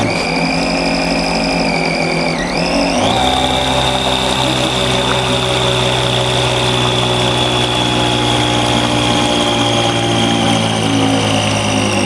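RC model boat's outboard motor running flat out on the water: a steady high whine that dips briefly, then swoops up to a higher pitch about three seconds in and slowly sags, over the rush of spray and wake.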